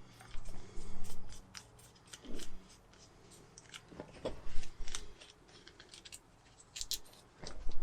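Irregular sharp clicks and light knocks in short clusters, typical of small parts and tools being handled and set down.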